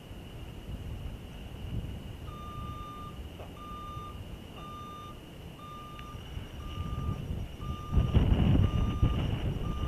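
A vehicle's back-up alarm beeping at one pitch, about once a second, starting a couple of seconds in. A louder low rumble comes in near the end.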